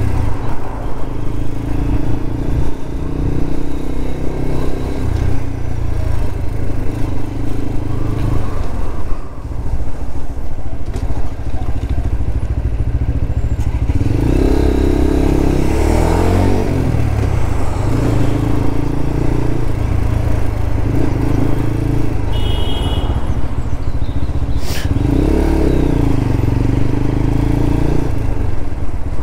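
Lexmoto LXR 125 motorcycle's single-cylinder 125 cc engine running on the move, its pitch rising as it accelerates and falling as it eases off, about halfway through and again near the end.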